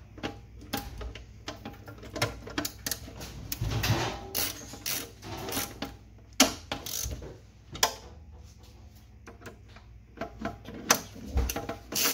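Socket ratchet clicking in short runs as a half-inch bolt is tightened on a sheet-steel electrical box, with a few louder metal knocks between the runs.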